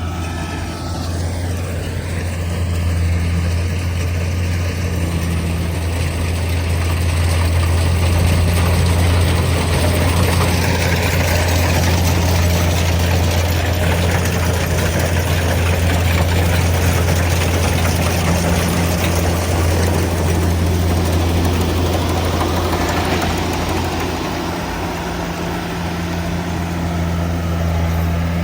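Kubota DC70G Plus combine harvester's diesel engine running steadily with a deep, even hum, the machine's broader mechanical noise growing louder through the middle and easing off toward the end.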